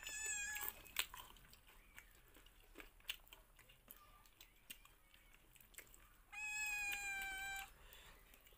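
A cat meowing twice: a short call at the start and a longer call, about a second and a half, that falls slightly, about six seconds in. Faint clicks and chewing sounds from eating by hand run in between.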